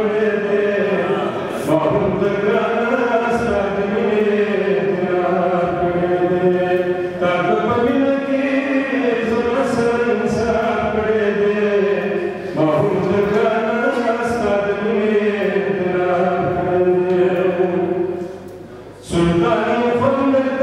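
A man chanting poetry in a melodic, half-sung style into a microphone, in long drawn-out phrases, with a short pause near the end.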